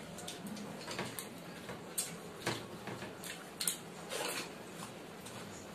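Two people eating fried rice and chicken curry by hand, close to the microphone: irregular mouth smacks and chewing, with soft clicks and rustles of fingers working rice on the plates.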